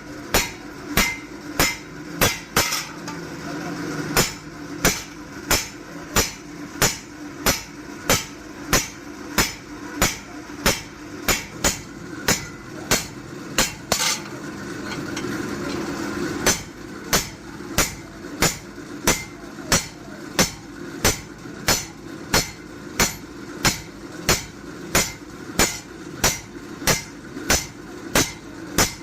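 Hand hammer striking metal on an anvil in a steady rhythm, about one and a half ringing blows a second, as a forage-cutter (chaff-cutter) blade is hammered into shape. A steady low hum runs underneath and swells twice.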